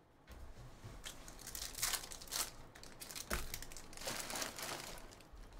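Stiff Topps Chrome baseball cards being handled by hand, sliding and flicking against each other and against their packaging, with crinkling and scraping in a few bursts, loudest around the middle.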